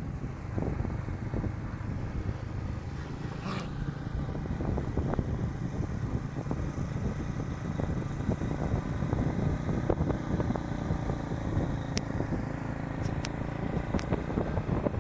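Motorcycle engine running steadily at road speed, with road and wind noise and a few light knocks.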